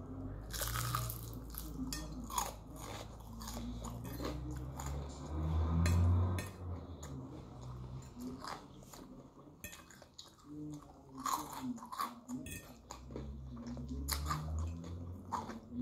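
A person biting into and chewing crispy fried food: repeated crunches over wet chewing, loudest about six seconds in.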